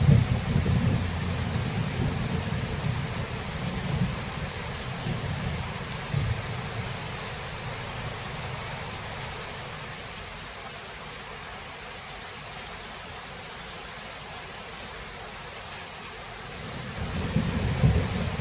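Steady rain with rolling thunder. The low rumble is strong for the first several seconds, dies away, and builds again near the end.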